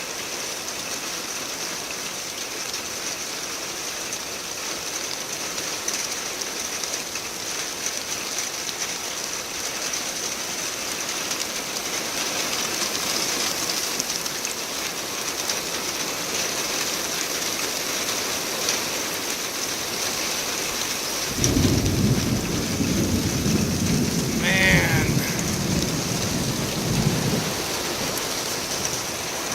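Steady rain falling, with a low rumble of thunder that starts about two-thirds of the way through and lasts several seconds.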